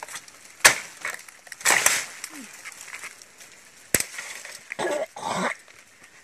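A machete striking bamboo stems: two sharp knocks about three seconds apart, with bamboo culms and dry leaves rustling between them.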